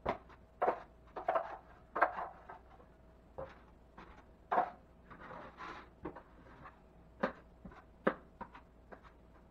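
Drywall knife clacking and scraping against a mud pan and the ceiling as quickset joint compound is loaded and spread: a string of sharp, irregular clacks, with a longer scrape about five and a half seconds in.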